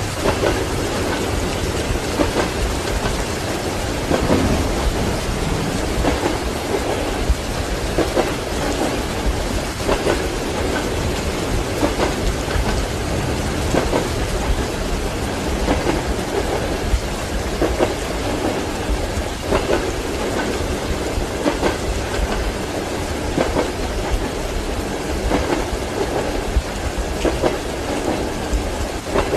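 Rain falling steadily over the low rumble of a moving train heard from inside a compartment, its wheels knocking over rail joints about every two seconds.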